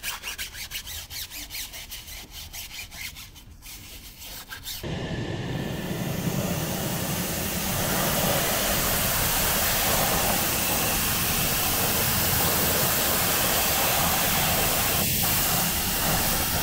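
A cloth wiping a car wheel in quick repeated rubbing strokes. About five seconds in, this gives way abruptly to a loud, steady rushing hiss that builds over a few seconds and then holds.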